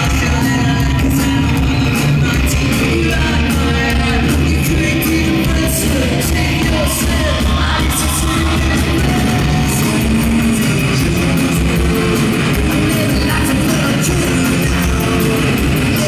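Rock band playing live: guitars and drums with regular cymbal strokes, and a voice singing over them.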